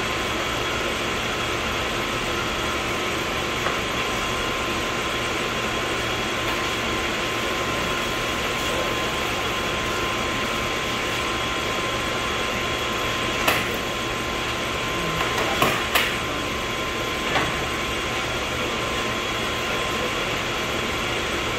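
Steady mechanical hum with faint whining tones, and a few sharp clicks and knocks about two-thirds of the way in.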